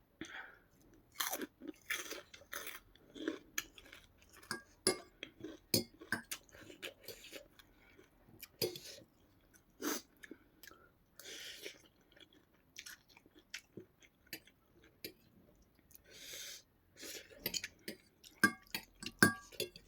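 Close-miked eating sounds: food being chewed and crunched in quick, irregular bites, with a few longer noisy stretches along the way.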